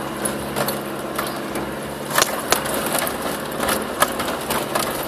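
Land Rover Discovery's turbodiesel engine running steadily under load as it crawls up a rough hill track, heard from inside the cab. Frequent sharp knocks and rattles come from the body and suspension over the bumps.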